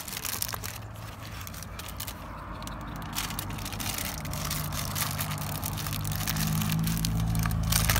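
Paper burger wrapper crinkling and crackling in a hand, in many small rustles. From about halfway a low steady hum comes in and grows louder toward the end.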